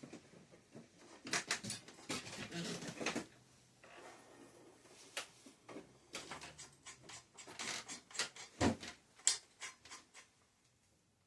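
Irregular clicks, light knocks and scraping from bicycle parts being handled during headset and fork assembly. The noises come in clusters, with the busiest stretches a second or so in and again around eight seconds in.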